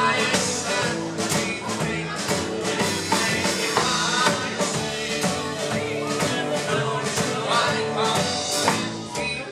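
Live band playing a country-rock song: guitar and drums with a singer, on a steady beat.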